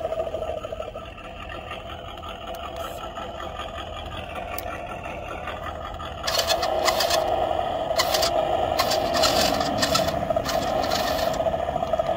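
370 electric motor and two-speed gearbox of a WPL C34 RC crawler whining steadily. From about six seconds in it gets louder, with rapid rattling clicks over the whine.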